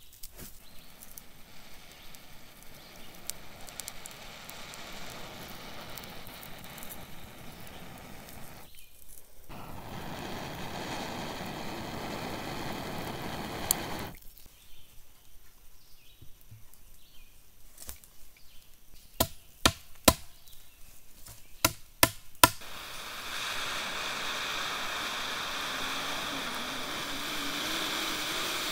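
Breath blown steadily onto a glowing ember set on a log, the air rushing over the coal as it burns into the wood. A shorter stretch of blowing comes earlier, and several sharp knocks come in between.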